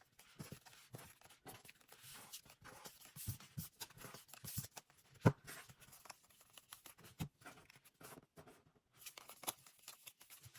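Faint rustling and light tapping of trading cards and their pack wrappers being handled and counted, with one sharper tap about five seconds in.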